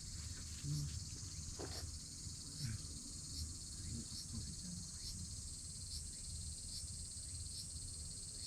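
Insects trilling steadily and high-pitched, with a faint pulse repeating about every two-thirds of a second, over a low rumble. A couple of short, low voice-like sounds stand out about a second in and near three seconds.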